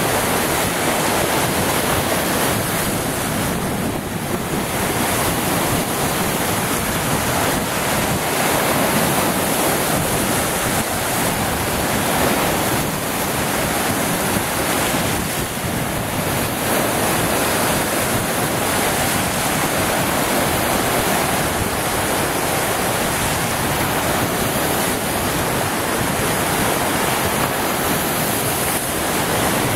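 Lake Superior waves breaking and splashing over a rocky shoreline, a continuous wash of surf, with wind blowing across the microphone.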